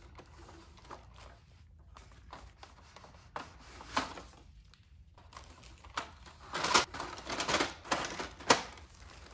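Sheets of printer paper rustling and shuffling as they are lifted out of the Brother MFC-J4620DW's plastic paper tray, with scattered plastic clicks; the handling gets busier later on, ending in a sharp knock of the tray.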